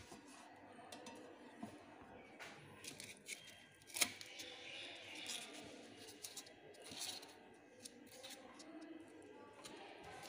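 Handling sounds from a REMI clinical centrifuge as its lid latch is worked and the lid is lifted: small clicks and rattles, one sharp click about four seconds in, and plastic packing rustling.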